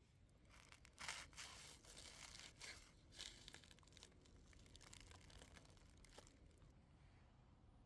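Aluminium foil wrapped around a baked potato being cut with a knife and pulled open, crinkling and tearing in irregular bursts that start about half a second in and die away after about six seconds.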